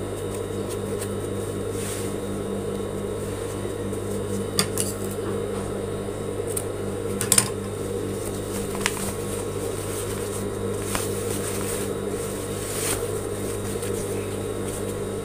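A steady mechanical hum, with fabric being handled and a few light clicks and taps, the sharpest about seven seconds in.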